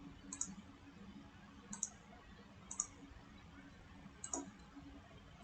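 Computer mouse clicking, a handful of faint separate clicks about a second apart, as circles are placed in CAD software.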